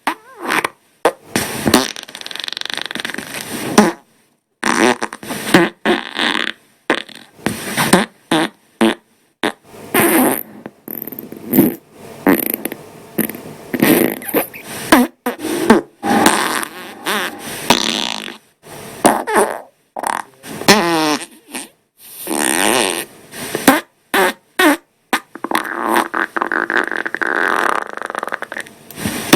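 Human farts, one after another with abrupt cuts between them: some short and sputtering, others long and drawn out with a wavering, buzzing pitch.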